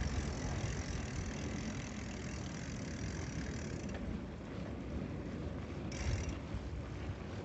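Riding noise from a bicycle on brick paving: wind rumbling on the microphone and the tyres rolling over the pavers, with a hiss that eases about four seconds in.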